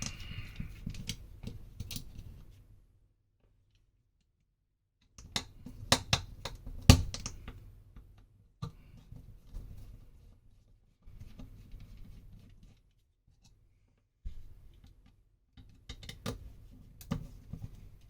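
Clicks, taps and scraping as a small plastic electronics controller housing is handled and worked at with a hand tool to get it open. The sounds come in short clusters with pauses between, and one sharp loud click about 7 seconds in.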